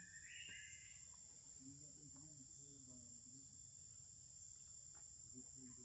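Faint, steady high-pitched drone of forest insects, with a few faint wavering tones lower down.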